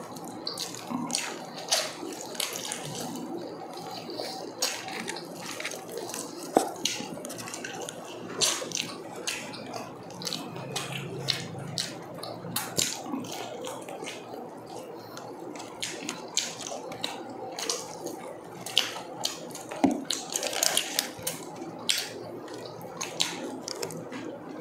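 Eating sounds: chewing and lip smacking with many irregular wet clicks, as roast chicken and pork are pulled apart by hand and eaten.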